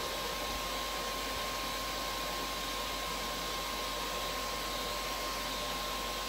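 Vacmaster 2.5 gallon shop vac running steadily, a constant rush of air with a thin high whine from its motor.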